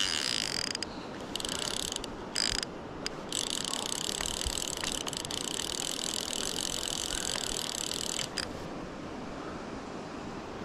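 Fly reel's click-and-pawl drag buzzing as a hooked salmon pulls line off the reel, in several short runs and then one long run of about five seconds that stops about eight seconds in. River water rushes underneath.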